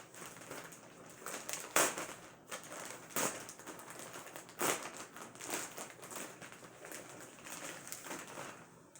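A plastic mailer bag being handled and opened by hand, crinkling and crackling irregularly, with three louder crackles in the first five seconds.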